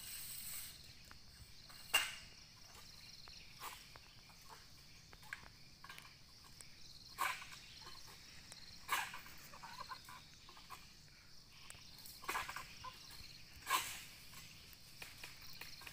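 Steady high insect buzz from the plantation, broken by a series of short sharp scraping cracks every couple of seconds, the strongest about two seconds in. The cracks are from a long-pole harvesting sickle hacking at oil palm fronds and fruit stalks high in the crown.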